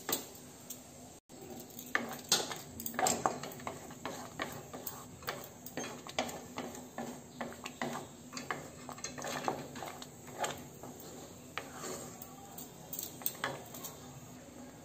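Wooden spatula stirring and scraping thick semolina halwa around a metal kadhai, with irregular knocks and scrapes against the pan as the halwa cooks down on low heat.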